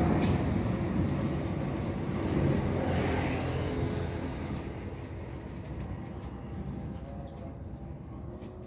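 A road vehicle passing close by and moving away, its engine and tyre noise fading steadily over several seconds, with a small swell about three seconds in.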